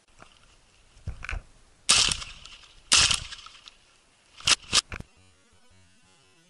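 Akdaş 212 S shotgun fired twice, about a second apart, each shot a sharp blast that dies away quickly, followed later by two shorter, quieter sharp cracks.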